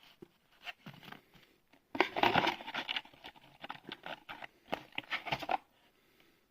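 Trading cards and card packaging being handled and moved around on a table: a run of rustles, taps and scrapes, busiest about two seconds in and dying away near the end.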